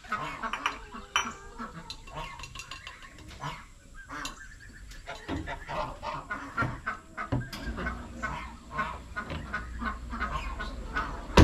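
Chickens and ducks calling, a steady stream of short clucks and honks, with a sharp knock near the end.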